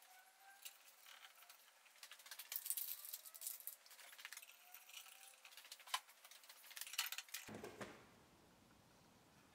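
Small metal bolts and nuts clinking and rattling against a steel workbench as they are picked up and handled: a run of sharp metallic clicks, busiest about three seconds in, with one louder click near six seconds, then the clinking stops.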